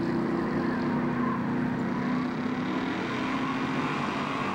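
Drag-race engine running loud and held at high revs while a pickup truck does a burnout, spinning its rear tyres into smoke.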